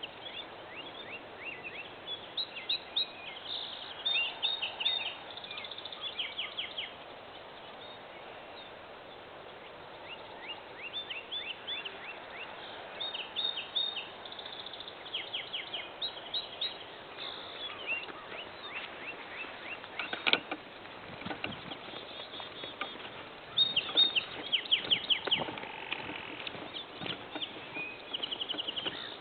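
Several wild birds chirping and singing in a field: short repeated chirps and quick trills overlapping, over a faint steady background hiss. A sharp click comes about twenty seconds in.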